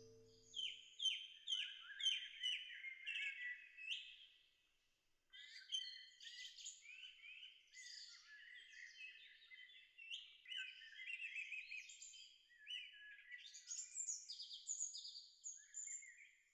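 A songbird singing a rapid series of high chirps and short downward-sweeping notes, in two long phrases separated by a brief pause about five seconds in.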